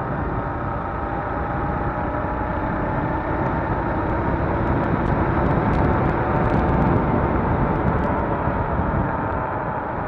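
Motorcycle on the move: engine running steadily under wind rushing over the microphone, swelling a little past the middle.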